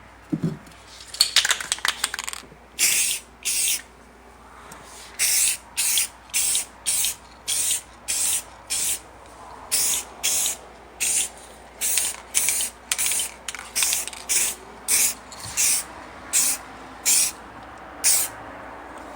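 Clear coat being sprayed in many short hissing bursts, mostly about two a second, with a pause about four seconds in.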